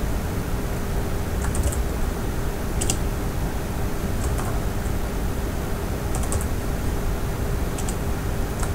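Computer keyboard being typed on in short, sparse bursts of a few keystrokes, with pauses of about a second between them, over a steady background hum.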